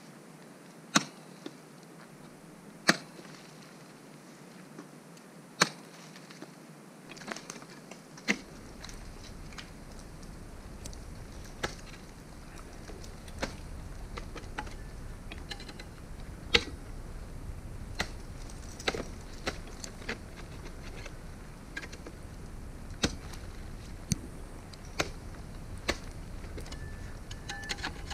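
Ice axe picks and crampon points striking into waterfall ice: single sharp thunks, usually a second or two apart, some much louder than others. A steady low rumble joins in about eight seconds in.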